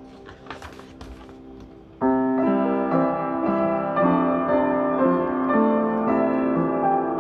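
Piano music: quiet for the first two seconds, with a few brief rustles, then loud and full from about two seconds in, a steady run of held piano notes and chords.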